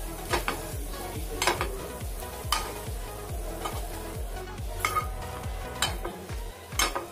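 Metal spoon scraping and clinking against a paddu pan as cooked egg paddus are lifted out, about six sharp knocks over a light sizzle. Background music with a steady beat underneath.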